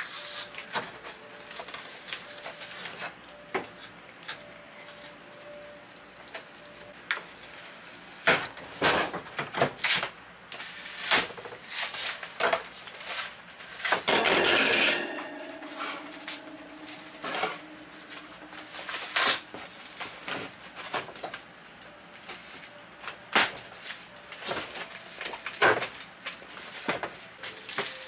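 Old wooden kitchen cabinet being pulled apart by hand: scattered knocks and clatters, with one loud cracking crunch about fourteen seconds in as the stapled side panel tears loose, then a short creak.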